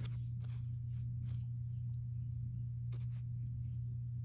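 Lego bricks being handled and pressed together: a few small, sharp plastic clicks spread over the first three seconds, over a steady low hum.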